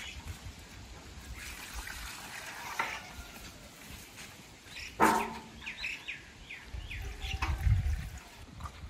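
A metal pail clanks sharply once about five seconds in, with a few short bird chirps right after it and a low rumble of handling near the end as the pail is set down.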